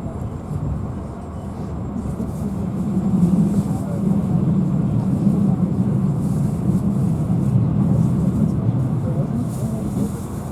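Passenger train running along the track, heard inside the carriage: a steady low rumble of wheels and car body that grows louder a couple of seconds in and holds.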